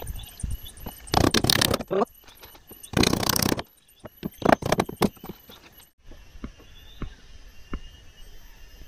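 Floor-laying work: bursts of scraping and knocking from boards being handled and fitted, then only a few faint taps over the last few seconds.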